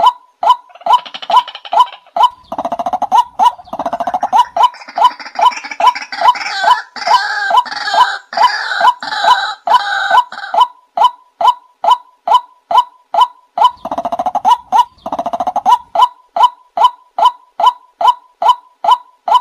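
White-breasted waterhen calling: a steady, rhythmic run of short 'wak' notes, about two to three a second. From a couple of seconds in until past the middle, and again briefly later on, a harsher, denser bout of overlapping croaking calls rises over the repeated notes.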